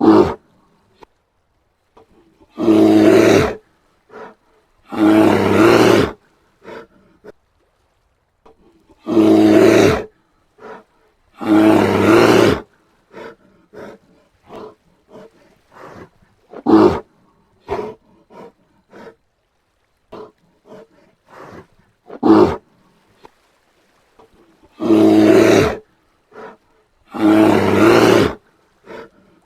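Brown bear roaring: six roars of about a second each, coming in pairs, with short barks and softer grunts between them.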